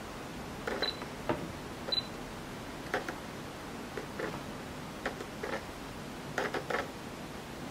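Fujifilm XF27mmF2.8 R WR lens's autofocus motor whirring and clicking in short separate bursts as its barrel extends and retracts to focus, several times over, with a couple of short high beeps near the start. The lens is not internal-focusing, so it makes this drive noise whenever it focuses.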